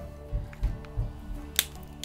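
Soft background music with held notes, over a few low knocks in the first second and a single sharp click about one and a half seconds in.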